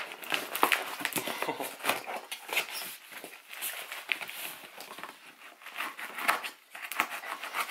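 Clear plastic stretch wrap and packing tape being cut with a knife and peeled off a cardboard box: irregular crinkling and crackling with scratchy scrapes against the cardboard.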